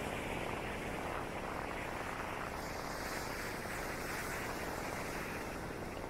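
Small sea waves washing onto a sandy beach, a steady hiss of surf.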